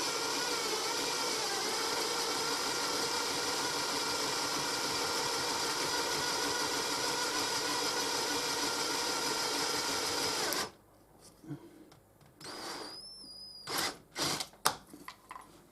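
Electric drill running steadily, boring a large hole through a caravan socket blanking plate, then stopping suddenly about ten seconds in; a few light clicks and taps follow.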